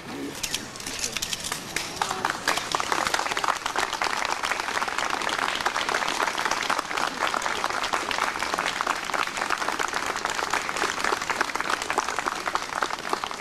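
A crowd applauding outdoors with many hands clapping, swelling about two seconds in and then holding steady.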